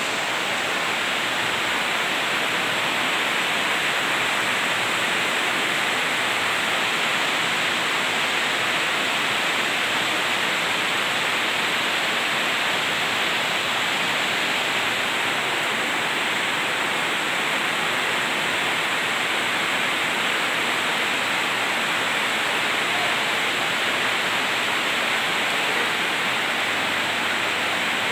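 Heavy rain falling, a steady, even rush of noise.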